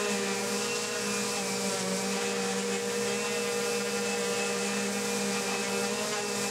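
DeWalt random orbital sander with 220-grit paper running steadily, with a constant hum, as it sands rust off a bandsaw table. A shop vacuum runs alongside, its hose drawing away the rusty dust.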